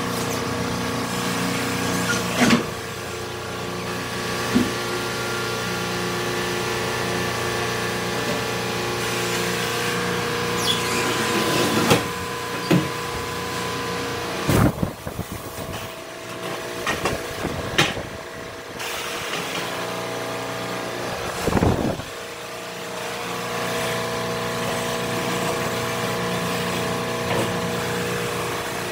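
Butler tyre changer running with a steady motor hum at several fixed pitches while a tyre is worked onto an alloy wheel. Several sharp knocks and snaps come from the tyre bead and tools against the rim. The hum drops out for several seconds past the middle, then returns.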